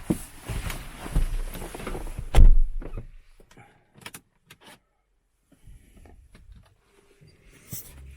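Rustling and shuffling, then a car door shutting with a thud about two and a half seconds in, followed by a few quiet clicks and a faint steady tone near the end.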